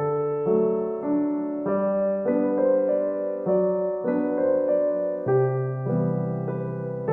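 Background piano music: a slow, gentle melody with sustained chords, the notes changing about every half second.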